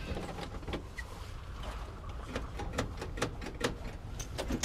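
Irregular clicks and knocks of switches and levers being worked in the cab of a Spryte tracked over-snow vehicle, over a faint low rumble.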